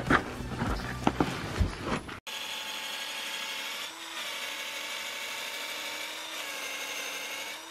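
Handheld power grinder running steadily with a high whine as it grinds old paint and rough spots off an old hand well pump. It starts suddenly about two seconds in.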